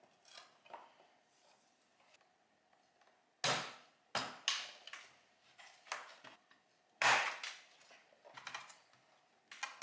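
Hard plastic headlight parts knocking and clicking as the chrome reflector trim and projector assembly are handled and fitted into the headlight housing by hand: a handful of sharp knocks, the loudest about three and a half and seven seconds in, with softer ticks between.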